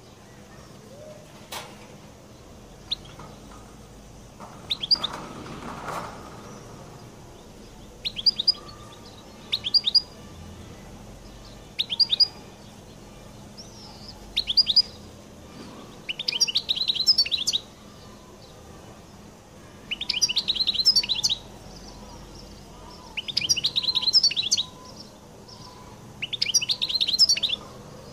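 European goldfinch giving short, separate chirps every couple of seconds, then from about halfway through singing twittering song phrases a second or so long, about every three to four seconds.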